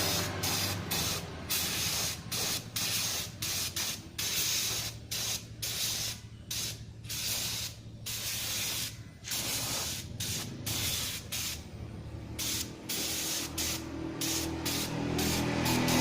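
Short, repeated bursts of hissing spray, starting and stopping every half second to a second or so, over a steady low hum.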